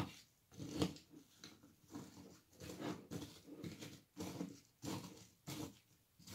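Spoon stirring crunchy granola and fruit into yogurt in a glass bowl: a string of crunchy scrapes and rustles, roughly one or two a second.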